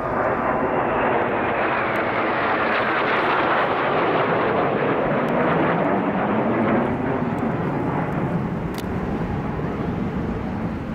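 Jet noise of Blue Impulse Kawasaki T-4 twin-turbofan jets passing overhead after a bomb-burst: a rushing jet sound that swells over the first few seconds with its pitch falling as the aircraft pass, then eases off somewhat near the end.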